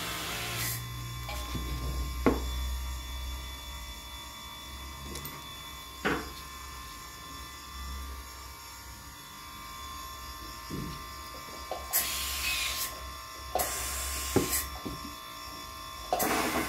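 Steady hum from the dental setup, with a few sharp clicks as instruments are handled and three short bursts of hiss in the last few seconds.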